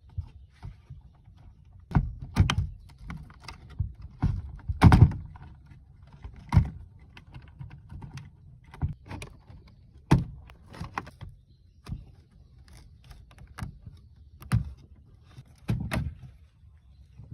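Irregular knocks, clicks and clatter of small hard parts being handled and set down, about one every second or two.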